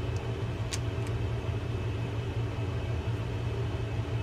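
A steady low background hum, with one sharp small click less than a second in and a fainter one just after, from the metal parts of a Daiwa Saltist LD30 lever drag reel being handled as its lever drag arm is nested onto the ramp.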